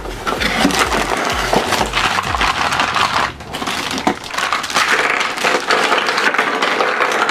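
Plastic toy building blocks being taken out and handled, a dense rustling clatter, with background music underneath.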